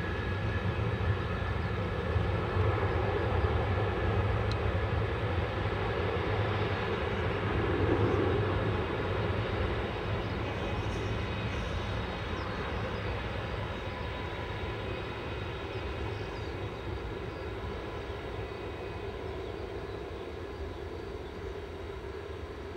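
Boeing 747 freighter's four jet engines at takeoff power during the takeoff roll: a steady rumble with engine whine, loudest about eight seconds in, then slowly fading as the aircraft moves away.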